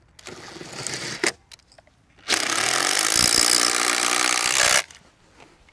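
Cordless Makita impact driver driving a screw through a Simpson HGAM hurricane gusset angle. It runs for about a second, pauses, then hammers steadily for about two and a half seconds until the screw is driven home.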